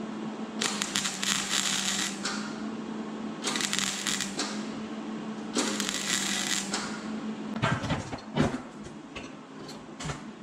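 Wire-feed welder tacking thin muffler sheet steel: three short bursts of crackling arc, each about a second long, over a steady low hum. A few sharp knocks follow near the end.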